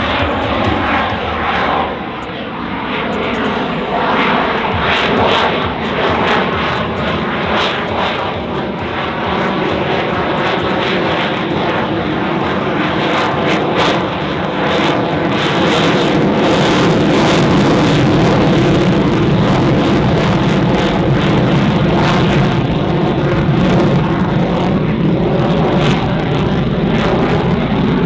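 Lockheed Martin F-22 Raptor's twin Pratt & Whitney F119 turbofans in a flying display: loud jet noise with a crackle, growing louder about halfway through and staying loud.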